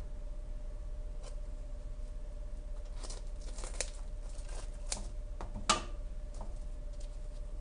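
Freshly fried youtiao (Chinese fried dough sticks) crackling and rustling on a paper towel as they are handled and torn open by hand. Scattered short crunchy snaps, the sharpest a little under six seconds in, over a faint steady hum.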